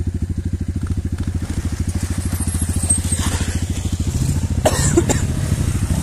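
Small dirt bike engine running at low speed close by, a steady fast putter. It grows louder about two-thirds in as the bike draws near.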